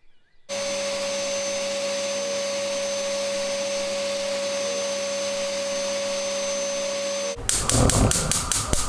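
Canister vacuum cleaner running steadily with a constant hum while vacuuming a sofa; it stops abruptly about seven seconds in. Then a quick run of sharp clicks as a gas stove burner is lit.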